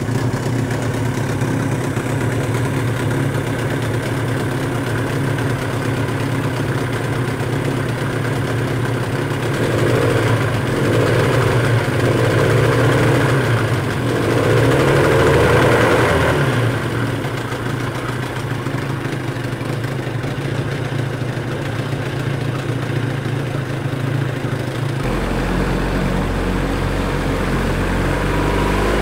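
Parsun 25 two-stroke outboard motor running at idle in a test tank, with water splashing, and a louder stretch for a few seconds near the middle. Its freshly fitted Yamaha water pump is pushing cooling water up through the open thermostat housing at idle, which the original Parsun pump could not do.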